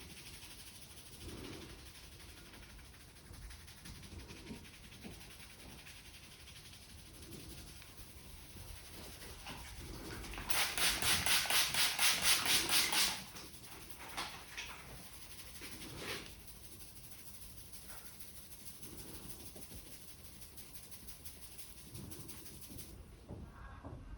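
Barber's hands rubbing and working the hair and scalp during an Indian head massage, with a burst of rapid rhythmic hand slaps on the head, about five a second, lasting about two and a half seconds in the middle.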